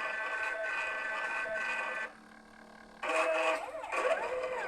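Stepper motors of a CNC laser machine whining as the head moves: a steady whine of several tones for about two seconds, a short lull, then whining that sweeps up and down in pitch.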